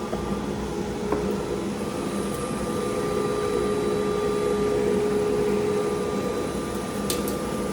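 CNC router spindle cutting a pre-finished shelf board: a steady whine over a rushing noise, cutting smoothly.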